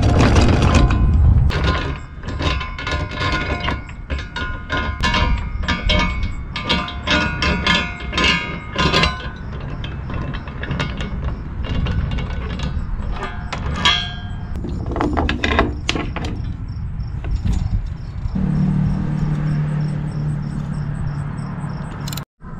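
Rapid metallic clicking and clanking from work on a sailboat's bow anchor roller, with its anchor chain and hand tools. The clicking is dense for about the first nine seconds and sparser after. A steady low hum comes in for the last few seconds.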